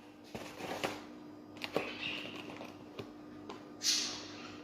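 Light kitchen handling sounds: scattered sharp clicks and taps over a steady low hum, with a short rustle about four seconds in.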